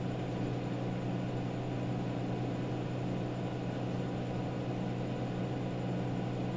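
Steady low hum with an even hiss over it: room noise that does not change, with no distinct events.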